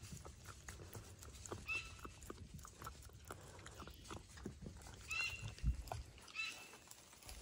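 A fox eating from a steel bowl: a run of quick small clicks of chewing and of food against the metal. Three short high chirps come through, and there is a low bump a little before the end.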